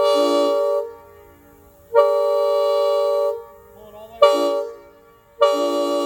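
Multi-chime train air horn sounding a steady chord in four blasts: long, long, short, then a long one that runs on. Long-long-short-long is the grade-crossing signal pattern.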